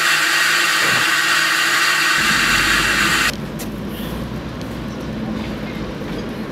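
Peckett 0-4-0 tank engine blowing off steam, a loud steady hiss that cuts off suddenly a little over three seconds in. A quieter low steady rumble starts just before the cut and continues after it.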